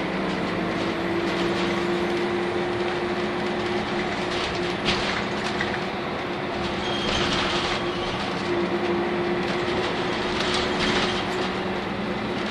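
Interior running noise of a Nissan Diesel UA city bus with a PU6 natural-gas (CNG) engine, driving at a steady pace: an even engine and drivetrain hum with road noise. A few short bursts of higher noise come through.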